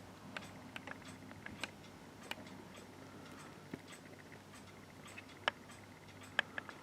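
Faint, irregular small clicks and ticks over quiet room tone, the sharpest two near the end.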